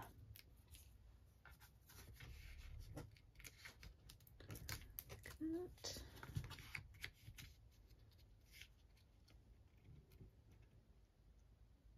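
Faint small clicks and paper rustles of the backing papers being peeled off foam adhesive dimensionals and the cardstock pieces being handled, thinning out in the second half.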